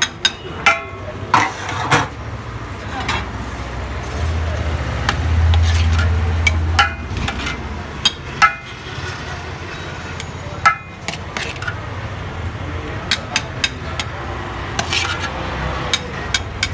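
Metal utensils clinking and knocking against pots and plates, over a steady low rumble that swells for a couple of seconds near the middle.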